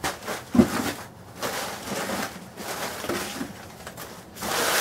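Crumpled packing paper rustling and crackling in uneven crinkles as it is pulled out of a parcel and tossed onto a pile, with a louder rustle near the end.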